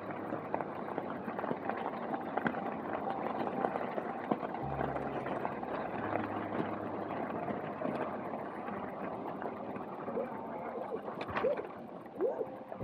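Steady rushing wind and road noise while riding a trike along a road, with a low hum joining about a third of the way in.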